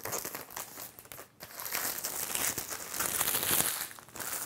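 Airtight plastic bag crinkling and rustling as it is pulled off a spool of 3D printer filament, with a brief lull a little over a second in and the busiest crinkling in the second half.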